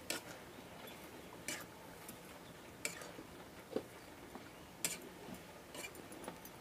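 About six sharp, irregular clicks, roughly a second or so apart, over a faint steady background hiss.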